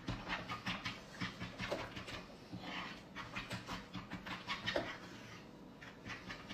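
Fork beating eggs in a well of flour on a wooden board: a quick, rhythmic scraping and tapping of about five strokes a second.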